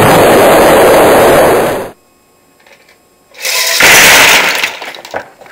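Explosion sound effect: a loud, dense blast that cuts off suddenly about two seconds in. After a short silence a second explosive burst rises at about three and a half seconds and fades, with a few sharp clicks near the end as a Lego model is blown apart.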